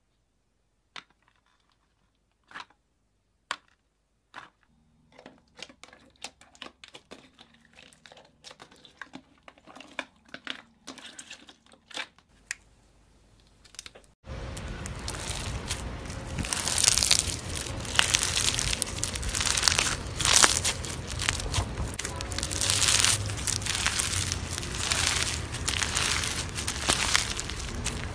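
Sparse light clicks and taps, then about halfway a sudden switch to loud, dense crackling and crunching as bead-filled crunchy slime is squeezed and worked in the hands.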